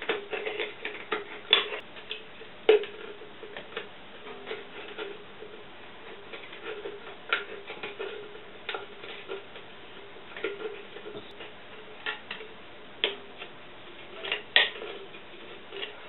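Screwdriver shank scraping and clicking against the cut rim of a tin can as it is worked around the hole, pressing the sharp edge inward to smooth it. Irregular sharp metallic clicks, the loudest about three seconds in.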